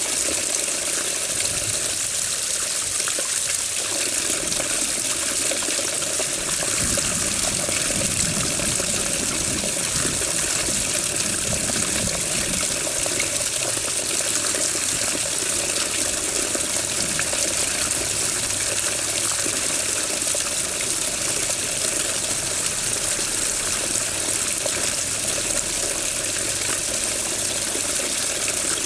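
Running water, flowing and splashing continuously at a steady level, with a little more low splashing near the middle.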